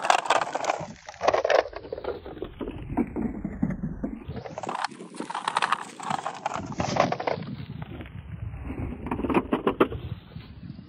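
Scale model SUV's wheels rolling and crunching over loose pebbles and dirt, a dense irregular crackle of small stones clicking, swelling and easing in waves as the toy is pushed along.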